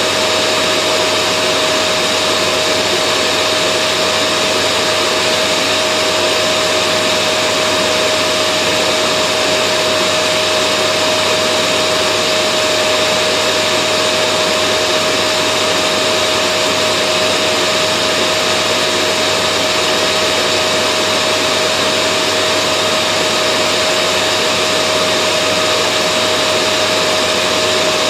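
Vacuum cleaner running steadily: an even drone of air noise with a constant whine through it, unchanging throughout.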